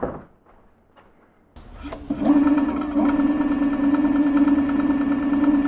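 Electric scooter's rear wheel motor spinning up under throttle and then running steadily, a constant whine with a fast, even ticking over it. The owner says it is definitely hitting something, and suspects the brake calipers rubbing or a fault in the motor.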